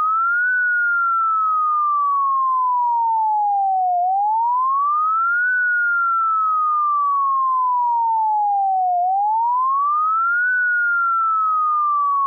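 Computer-generated emergency evacuation alarm: a single pure sine tone that glides up quickly over about a second and a half, then slides slowly down over about three and a half seconds, repeating every five seconds at a steady loud level.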